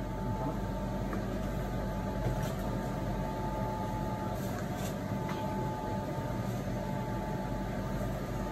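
Steady machinery hum with a thin constant whine, unchanging throughout, with a few faint light clicks and ticks from hands working a rubber hose onto its fitting.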